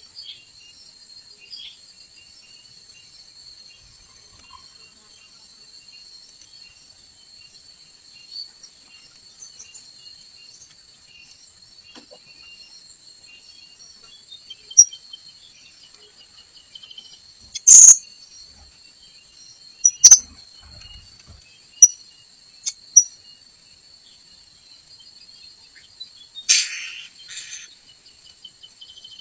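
Shrill, very short calls of srindit (blue-crowned hanging parrots), single sharp notes every second or two from about halfway through and a longer burst near the end, over a steady high-pitched insect drone.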